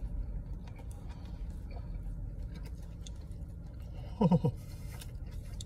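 Steady low car-cabin rumble with faint chewing clicks from a man eating. About four seconds in comes one short falling 'ooh' as he blows out through an open mouth over a mouthful of steaming-hot steak sandwich.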